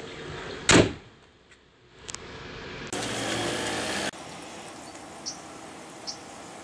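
Car bonnet slammed shut once, a single loud metal bang with a short ring, under a second in. About three seconds in comes about a second of louder rushing noise, then a steady outdoor background with a few faint chirps.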